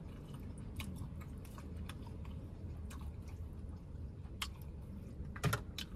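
Shrimp and lobster from a seafood boil being picked apart by hand in a bowl and eaten: scattered small clicks of shell and wet squishes, with chewing, over a low steady hum. The loudest is a quick cluster of clicks about five and a half seconds in.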